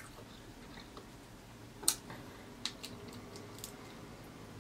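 Crab shell picked apart by hand: a few faint, sharp clicks and cracks of shell, the sharpest a little under two seconds in.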